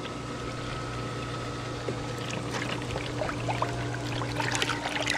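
Pool water gurgling and swirling as it is sucked hard down into an above-ground pool's skimmer by the running pump, over the pump motor's steady hum. Small splashes in the second half as a hand stirs the water in the skimmer.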